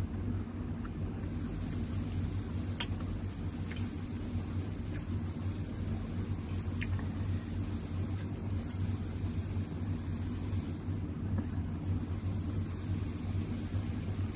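Steady low hum of an electric stand fan running, with a few light clicks of a metal fork against a plate; the sharpest click comes about three seconds in.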